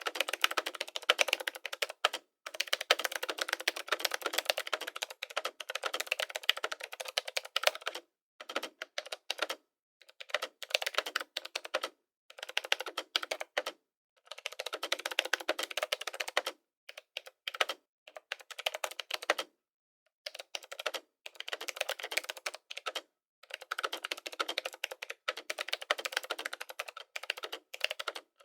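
Typing on a computer keyboard: rapid runs of clicking keystrokes a few seconds long, broken by short pauses.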